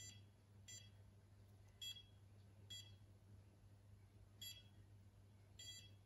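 Welock Touch41 fingerprint smart lock beeping: six faint, short electronic beeps at uneven intervals as a thumb is placed on the reader again and again to enrol an admin fingerprint.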